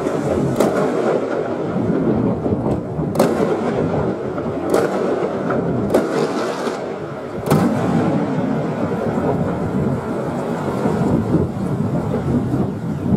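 Fireworks exploding, slowed to half speed: a continuous rumble of bangs, with five sharp cracks in the first seven or eight seconds and only the rumble after that.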